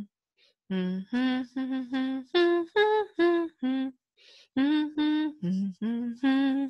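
A woman humming a children's song tune with closed lips: a string of short separate notes, with a brief pause about halfway through.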